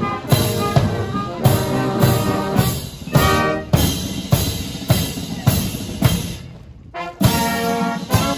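Military marching band playing a march: trombones, cornets and horns over a steady bass-drum beat about twice a second. The music thins to a brief pause about six and a half seconds in, then the band comes back in loudly.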